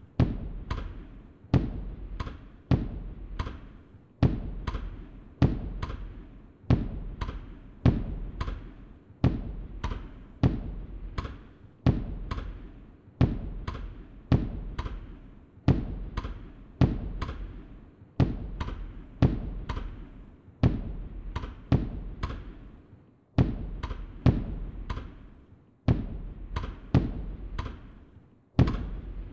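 Firework bursts, one sharp bang with a deep low end about every second, each fading away over the following second before the next.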